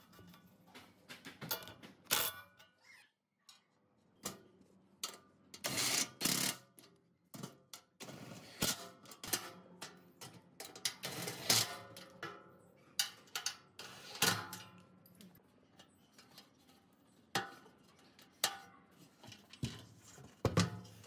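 Irregular clinks, taps and knocks of metal fan parts and a wrench being handled while the fan's blade and wire guard are fitted, with a few louder knocks about 2, 6, 11 and 14 seconds in.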